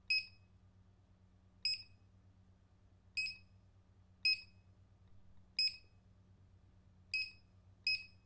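Barcode scanner beeping once for each item barcode it reads: seven short, high beeps at uneven intervals of about one to one and a half seconds, each marking a successful scan.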